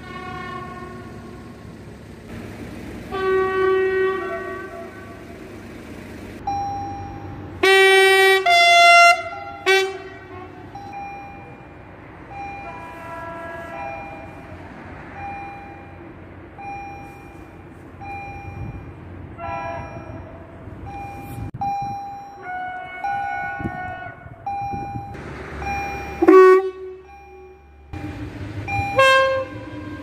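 Electric train horns sounding the Polish Rp1 'Baczność' attention signal, a series of blasts from several trains, the loudest about 8 seconds in and again near 26 seconds. Between the blasts a level-crossing warning device beeps about once a second.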